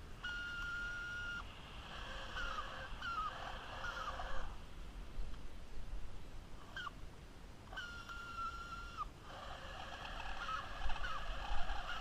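Remote-control toy car's electric drive motor and gears whining in short runs. Each run is a steady whine that drops in pitch as it stops, followed by rougher, wavering gear noise as the car is driven in spurts over rough ground.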